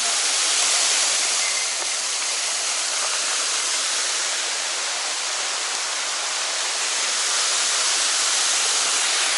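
Steady rush of a mountain stream's water tumbling over rocks and check-dam drops, an even hiss with no breaks.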